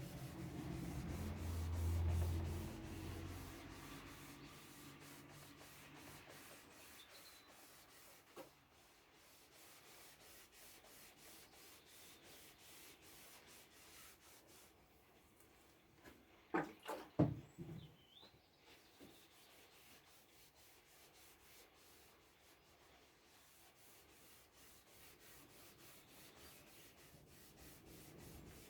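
Faint hand rubbing on the veneered wooden speaker cabinet surface. A low rumble fills the first few seconds, and a few sharp knocks come about 17 seconds in.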